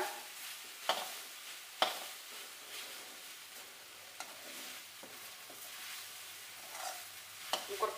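Boneless chicken pieces sizzling in a dry metal kadai over a high flame, the cooking liquid boiled off and the meat browning on the pan's bottom. A metal spatula stirs and scrapes through them, clicking sharply against the pan twice in the first two seconds and more lightly later.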